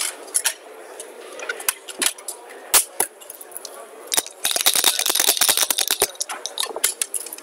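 Backgammon checkers clacking down on the board as they are moved, a few separate clicks, then a rapid rattle of dice being shaken in a dice cup for about a second and a half past the middle.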